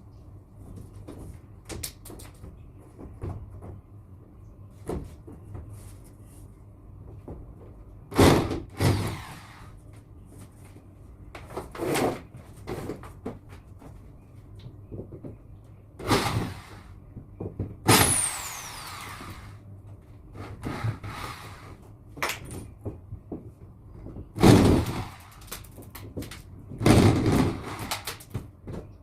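Partition wall being pulled apart by hand: a series of loud bangs and knocks as panels are wrenched off and dropped, with lighter rattling between and one falling scrape about two-thirds of the way through.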